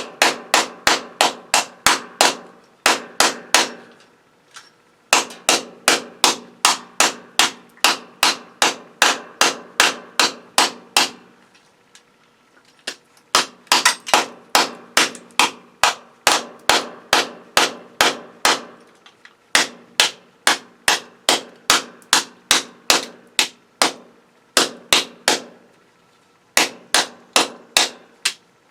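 Hammer striking metal in quick runs of about four blows a second, with short pauses between the runs and a ringing tone under the blows, as a ganged circuit breaker is knocked apart for scrap.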